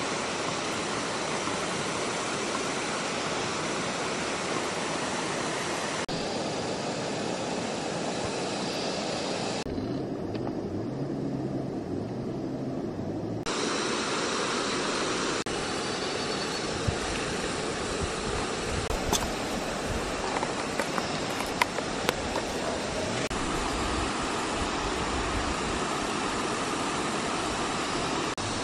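Steady rushing of a shallow, rocky river, with a few sharp knocks in the second half.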